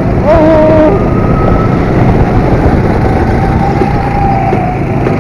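Go-kart engines running at racing speed with loud wind rush on the microphone. Over it a high whine shifts in pitch, dipping about half a second in and then holding fairly level.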